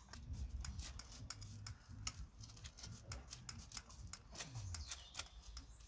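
Mortar grouting gun being worked along the joints between stone paving slabs: faint, irregular clicks and scrapes.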